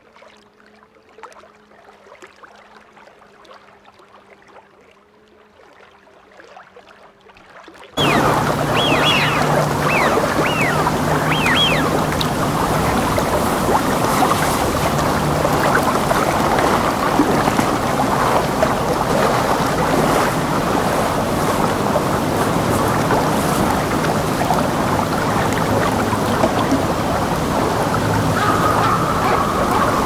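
Faint, quiet outdoor ambience with a low steady hum, then an abrupt cut about eight seconds in to loud, steady surf from waves breaking on the shore, with a few short falling whistles soon after the cut.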